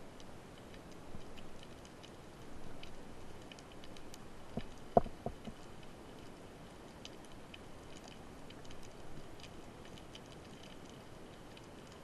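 Underwater crackle of scattered sharp clicks from snapping shrimp, with a short cluster of louder, duller knocks about five seconds in.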